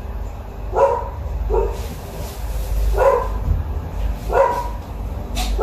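A dog barking: about four short single barks, spaced a second or more apart, over a low steady rumble.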